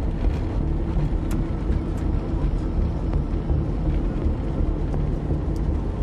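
Steady low engine and road rumble inside a moving van, with a few faint ticks.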